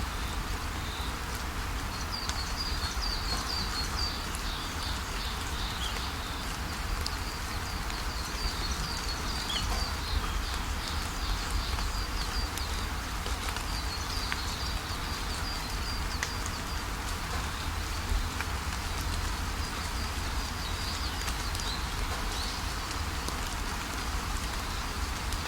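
Waterfall rushing steadily, with small birds chirping high above it in runs of quick trilled notes that come and go.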